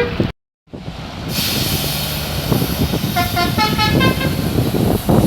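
Bus telolet horn playing a quick run of short notes at changing pitches, a little past the middle, over a steady rumble of engines.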